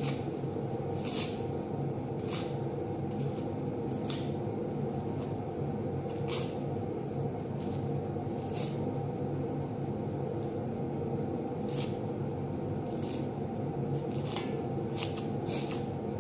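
Dry red-onion skins crackling and rustling as onions are peeled by hand with a small knife, in short crackles about once a second, over a steady low hum.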